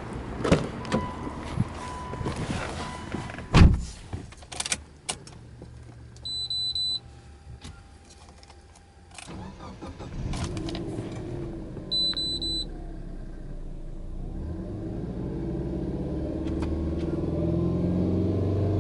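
Subaru Legacy B4 2.0GT's turbocharged flat-four (boxer) engine starting about nine seconds in, idling, then revved up slowly and held near 3,000 rpm at the end. Before the start there are knocks and a loud thump from getting into the car, and short high warning beeps that sound again just after the engine starts.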